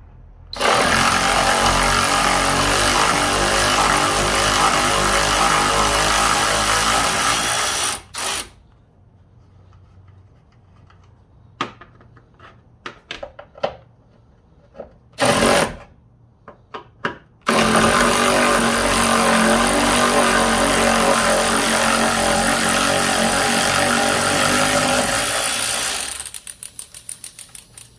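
Impact wrench undoing the strut's top mount nuts: two long runs of several seconds each with a short burst between them and handling clicks in the gaps. The second run tails off into rapid ticks near the end.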